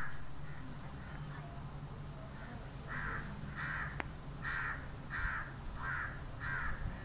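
A crow cawing over and over: a series of six short, harsh caws, evenly spaced about two-thirds of a second apart, beginning about three seconds in.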